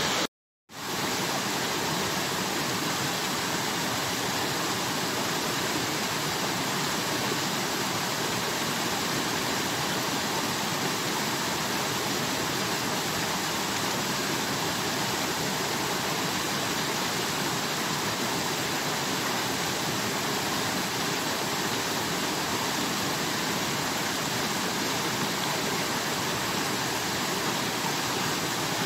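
Steady, even rushing noise throughout, cut off to silence for about half a second near the start.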